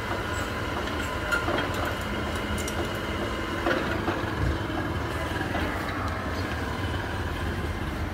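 Steady low engine rumble, with a faint hum above it and a few small clicks and knocks.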